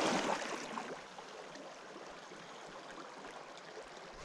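Small creek's flowing water rushing steadily over riffles, louder for about the first second and then even.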